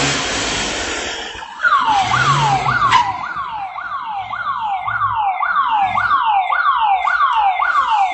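An electronic siren sounds a falling tone over and over, about twice a second, starting about a second and a half in. Before it there is a loud, steady rush of street noise that fades out.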